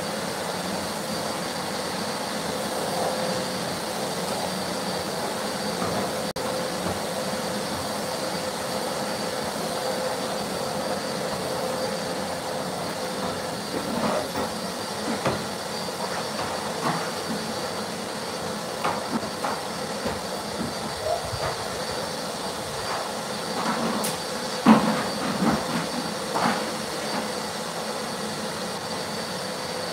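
Canister vacuum cleaner with hose and wand hoovering carpet, its motor running with a steady whine and hiss. Short knocks and clatters come in spells through the middle and later part, the loudest about two-thirds of the way through.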